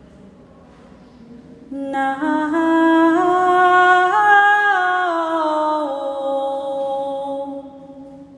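A single voice sings a long wordless line that steps up in pitch and then steps back down, held notes echoing in the stone King's Chamber of the Great Pyramid. It enters about two seconds in and fades near the end.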